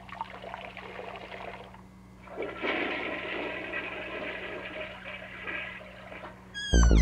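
Toilet flushing: water rushing, swelling about two and a half seconds in and draining away. A short rising whistle and music come in at the very end.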